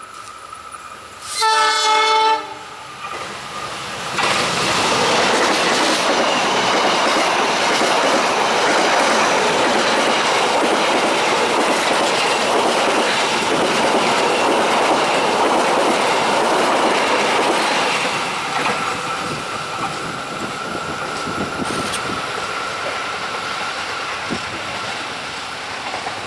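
A train sounds one horn blast about a second long, then passes close by: loud rolling and clatter of the wheels on the rails that holds for about fourteen seconds and then eases off, with a thin steady whine as the last cars go by.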